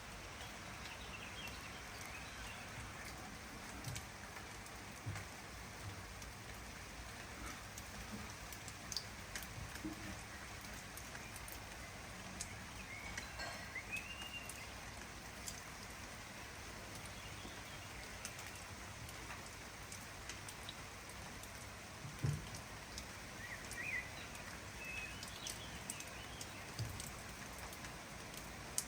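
Steady rain falling, with scattered individual drops ticking. A few faint bird chirps come through twice, about halfway and again near the end.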